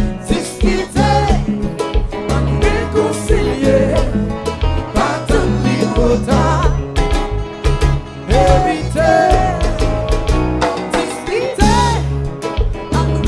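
Live band music: a singer's voice over electric guitar, bass and drum kit, playing continuously.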